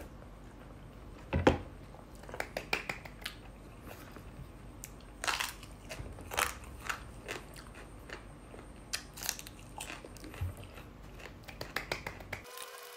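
Close-up eating sounds: a person chewing instant noodles, with irregular wet lip smacks and mouth clicks. There is a single louder knock about one and a half seconds in.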